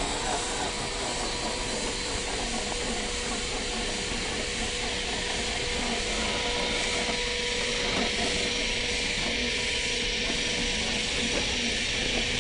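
Scale RC crawler's electric motor and gearbox whining steadily as it creeps over rocks, under a constant high hiss, with a few faint ticks of tyres on stones.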